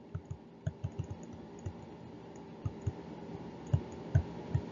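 Irregular soft taps and knocks of a stylus writing on a tablet, a dozen or so strokes with the firmest ones near the end, over a faint steady hum.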